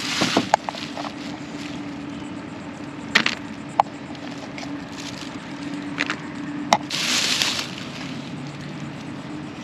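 A spoon clicking and scraping in a plastic food container while ceviche is scooped out, with a few sharp clicks and two short bursts of plastic-bag rustling. A steady low vehicle hum runs underneath.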